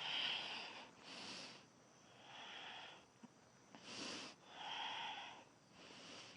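A person breathing deeply and audibly, about six slow breaths in and out in a steady rhythm, heard close up with no voice.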